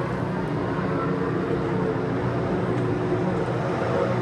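A 2015 Formula 1 car's 1.6-litre turbocharged V6 engine running at a fairly steady pitch.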